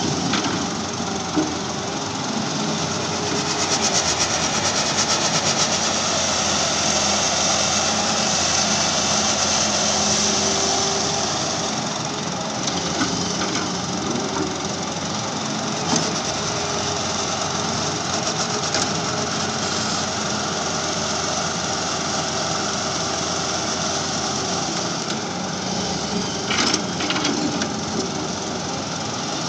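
Diesel engine of a Halla 130W wheeled excavator running steadily under load as it digs and dumps soil into a tractor trolley, with a few sharp knocks along the way.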